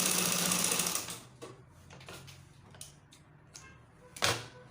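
Sewing machine running for about a second, then stopping, followed by faint clicks and a single sharp knock near the end.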